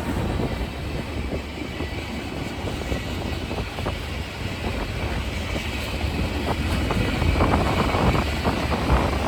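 Freight train rolling by: steady low rumble with scattered clanks and wheel clicks, getting louder over the last couple of seconds.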